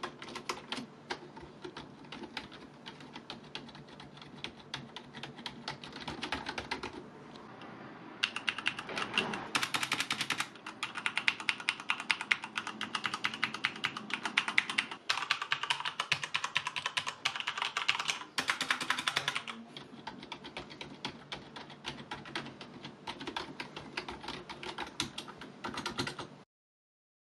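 Fast typing on gaming keyboards tested in turn: Corsair K65 RGB Rapid Fire and K70 RGB mechanical keyboards and a Razer Cynosa Chroma mecha-membrane keyboard. A dense clatter of keystrokes changes tone abruptly several times as the keyboard changes, loudest and brightest in the middle. It stops about a second before the end.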